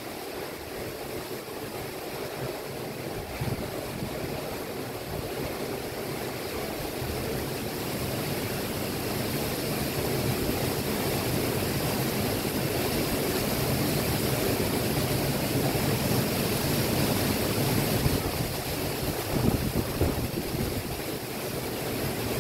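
Storm-driven surf breaking against a sea wall, mixed with strong wind gusting across the microphone: a steady rushing noise that swells louder after several seconds, with a few sharper gusts near the end.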